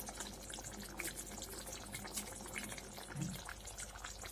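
Curry gravy boiling in a pan: soft, scattered bubbling pops.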